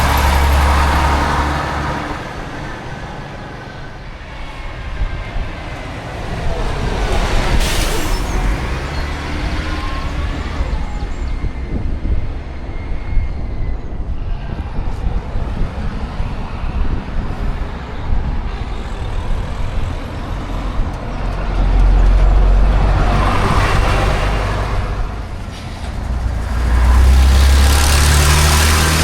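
Classic diesel buses running and driving past, engine sound swelling and fading several times, with a short hiss about eight seconds in.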